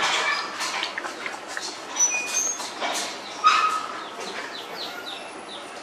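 39-day-old puppies suckling at their mother: a run of wet smacking and snuffling clicks, heaviest early on and about three and a half seconds in, with a few short high chirps over it.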